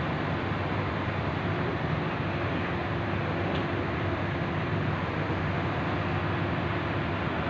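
Diesel engine of an XCMG 25-ton truck crane running steadily as it holds a steel roof truss on the hook, a constant low hum with a faint steady tone over it.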